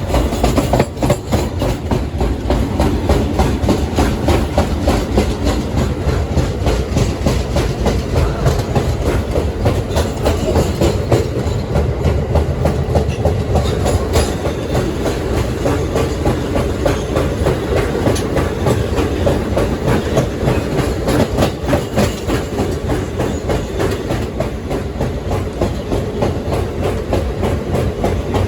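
R160B subway train with Siemens propulsion running along the track: a steady, loud rumble with wheels clicking over rail joints.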